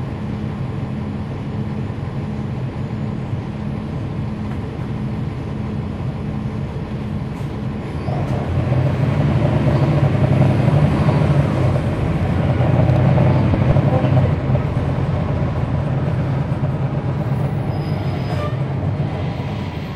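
Cummins ISL9 diesel engine of a NABI 40-foot transit bus, heard from on board while the bus is running. The engine gets louder about eight seconds in as it works harder, then eases off toward the end.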